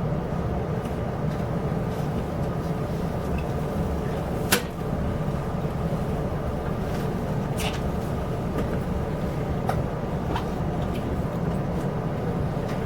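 Inside a locomotive-hauled Chu-Kuang Express passenger coach on the move: a steady low running rumble, broken by sharp clicks and knocks from the carriage. The loudest knock comes about four and a half seconds in, with lighter ones later.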